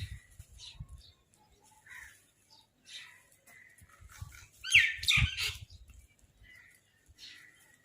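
Crows calling with short, scattered calls, the loudest cluster coming about five seconds in, with a few low thumps alongside.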